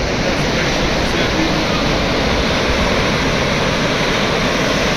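Atlantic surf washing in over shallow water and against shoreline rocks, a steady rush.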